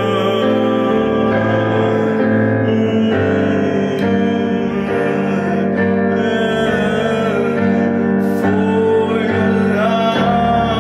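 Music: a piano-voiced keyboard playing sustained chords that change every second or so, with a melody line above.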